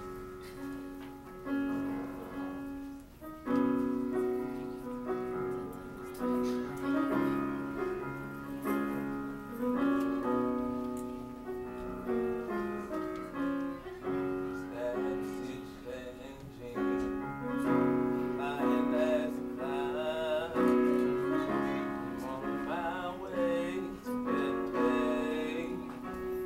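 Piano playing slow held chords, with a church choir of women's voices coming in singing about two-thirds of the way through.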